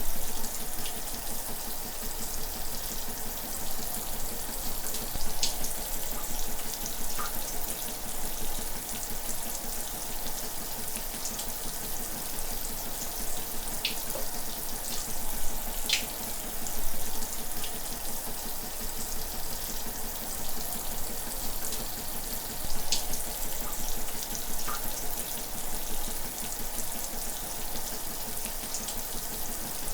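Shower running steadily, water spraying and splashing with a constant hiss and a few faint scattered ticks of drops.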